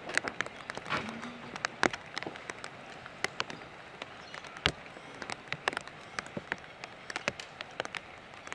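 Light rain: scattered raindrops ticking irregularly over a steady soft hiss.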